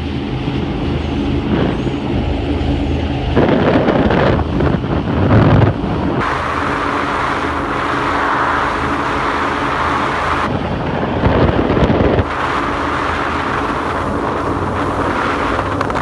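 Powerboat engines running at high speed, a steady drone heard under wind buffeting the microphone and water rushing past, the rush swelling and dropping several times.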